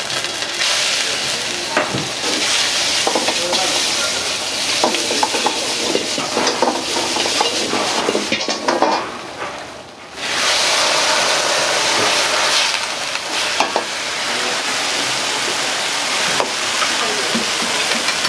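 Wok stir-frying over a high gas flame: food sizzling in hot oil, with the metal ladle clanking and scraping against the wok. The sizzle drops away briefly about halfway through, then surges back loudly as vegetables go into the hot wok.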